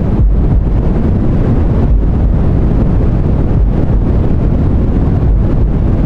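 Deep white noise for sleep: a loud, steady rushing hiss weighted toward the low end, like a dull rumble, with small swells in level.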